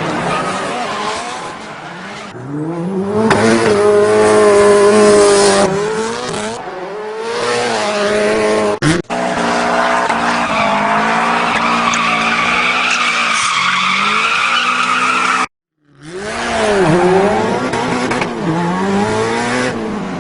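Racing-car sound effects: an engine revving up and down with squealing tyres, cut together from several clips, with a sudden break about nine seconds in and a brief silence around fifteen seconds.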